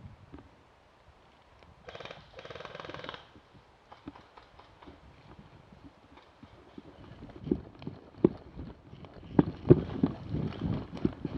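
A run of sharp, irregular knocks and clicks that grows louder in the second half, with a brief buzzy pitched sound about two seconds in.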